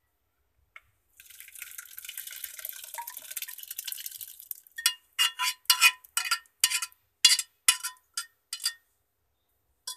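Curdled milk and whey pouring from a steel pot into a cloth-lined strainer, a steady splashing wash for about three seconds as the chhena is strained. Then a spatula knocks and scrapes against the steel pot about a dozen times, sharp metallic clinks, to get the last curds out.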